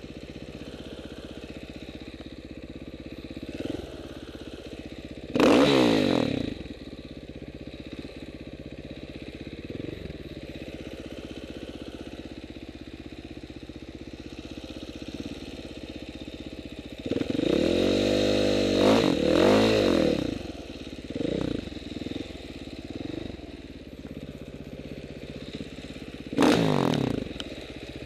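Off-road dirt bike engine idling steadily, with the throttle blipped in short revs: one about five seconds in, a cluster of revs between about seventeen and twenty-three seconds, and another near the end.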